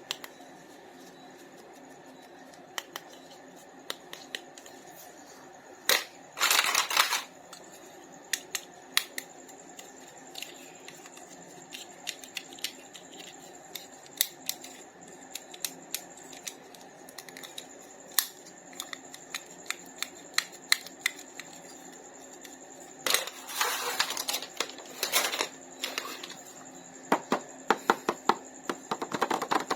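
Toy packaging being handled: scattered clicks and taps, with brief bursts of crinkling about 6 seconds in and again about 23 seconds in, and a quick run of clicks near the end.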